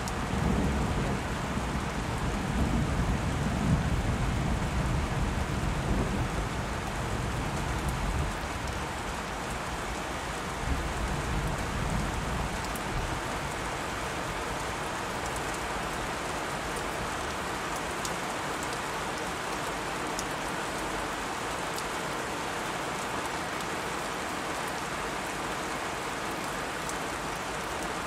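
Steady rain hissing, with a low rumble of thunder over roughly the first eight seconds that then dies away.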